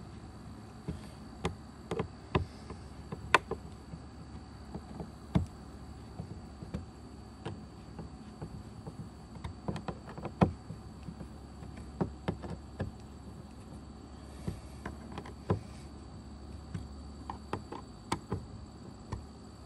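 Phillips screwdriver turned by hand, finish-tightening the screws of a plastic gear track into a hard plastic kayak deck: scattered, irregular clicks and taps of the driver tip in the screw heads and against the track.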